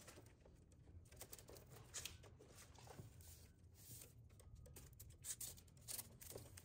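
Near silence: room tone with a few faint, scattered ticks and rustles.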